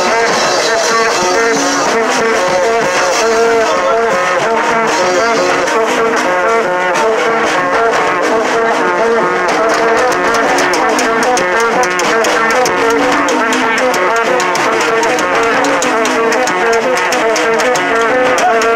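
Haitian rara band horns, plastic vaksen tubes and flared konè horns, blowing short notes repeated over and over at a few fixed pitches. Fast, sharp percussion strokes join in about six seconds in.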